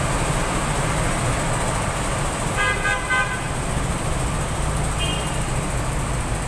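Slow, congested road traffic with a steady low engine and road rumble. A vehicle horn sounds two short beeps about two and a half seconds in, and a briefer, fainter horn beep follows near five seconds.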